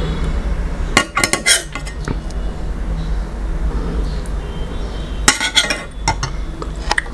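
A metal serving spoon clinking against a stainless-steel serving bowl as curry is scooped out, in two short bouts of clinks: about a second in and again just past five seconds.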